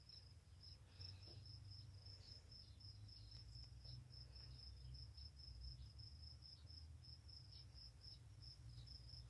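A cricket chirping steadily, an even run of short high-pitched chirps about four a second, faint, over a low rumble, with a few faint scratches.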